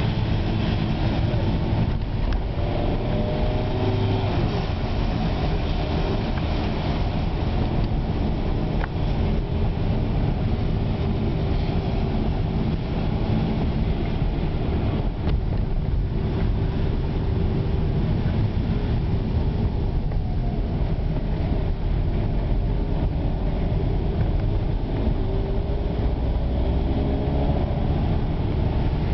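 Car engine and tyres on a wet road heard from inside the cabin: a steady low rumble, with the engine note slowly rising and falling as the car speeds up and slows.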